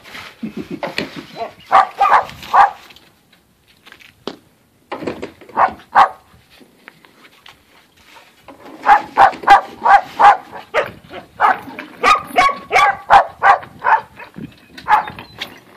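Border collie puppies barking in quick, high yaps, coming in short bursts with a long, rapid run of yaps through the second half.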